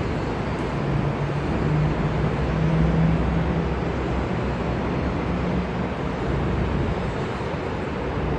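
Steady rumble of distant road traffic, with a low droning hum that swells about two seconds in.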